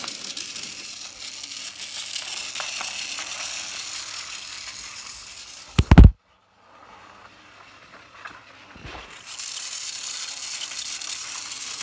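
Battery-powered toy train chassis whirring and rattling along plastic track, its small motor and gears running steadily. About six seconds in there are a couple of loud knocks, then a moment of dead silence, and the whirr picks up again near the end.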